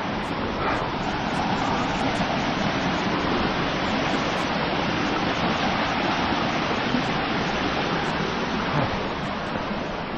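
Steady rush of water from a canyon stream and waterfall, an even noise without breaks.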